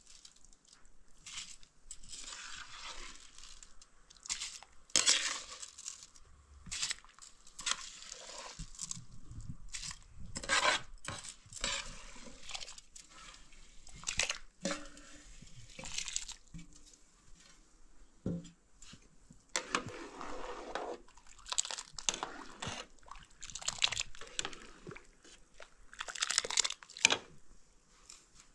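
Irregular handling noises: scattered crunches, scrapes and light knocks.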